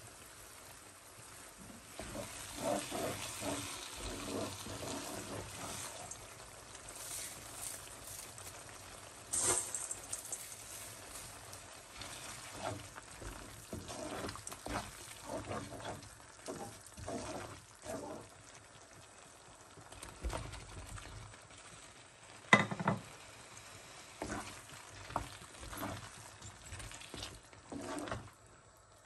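Thick curry masala sizzling in a stone-coated wok while a wooden spatula stirs and scrapes through it, with irregular knocks of the spatula against the pan. One sharper, louder clunk comes about two-thirds of the way through.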